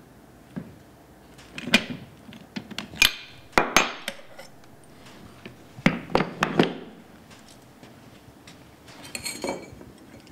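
Metal clanks and knocks from a scissor pipe bender as it is worked through a bend in 15 mm copper pipe: a few sharp knocks in clusters about two, three to four and six seconds in, with a lighter one near the end.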